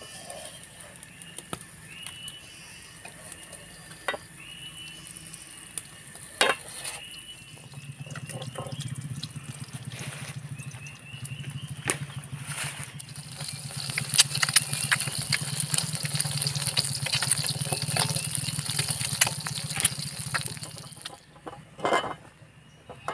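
Eggs frying in hot oil in a steel wok over a wood fire: the sizzle builds about eight seconds in, crackles hardest in the middle, and dies down near the end. A few clinks of a metal spatula on the wok come earlier. Cicadas drone steadily throughout.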